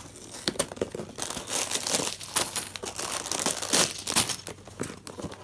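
Clear plastic bag of LEGO pieces crinkling as it is handled and shaken, in a dense run of sharp crackles that is loudest through the middle.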